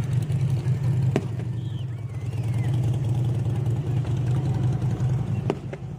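A steady low hum, with two sharp pops: one about a second in and one near the end.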